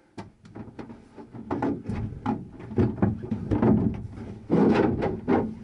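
A glued wall panel being slowly pried and peeled off the wall, with a string of sharp cracks, clicks and creaks as the panel flexes and the adhesive gives way; the louder, rougher stretches come about halfway through and near the end.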